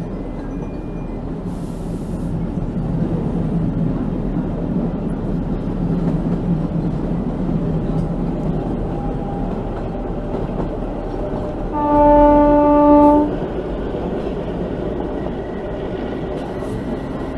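Narrow-gauge train running along the track, a steady rumble of wheels and coaches heard from a coach window. About twelve seconds in, the ZDM-3 diesel locomotive's horn sounds once, a single held chord lasting about a second and a half.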